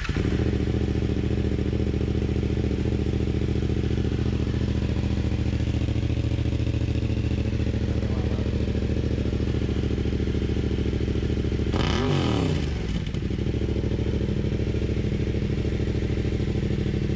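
2019 Yamaha MT-07's 689 cc parallel-twin engine running on its first start with an aftermarket slip-on muffler, catching right at the start and then idling steadily. About twelve seconds in it is blipped once, the pitch rising and falling, before settling back to idle.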